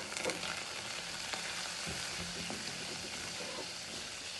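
Butter sizzling steadily in a stainless-steel kadai as grated ginger fries in it, stirred with a wooden spatula that gives a few light taps against the pan.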